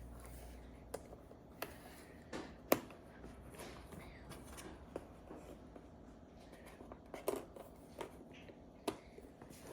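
Cardboard jigsaw puzzle pieces being handled and pressed into place: faint, scattered clicks and light taps, the sharpest about three seconds in.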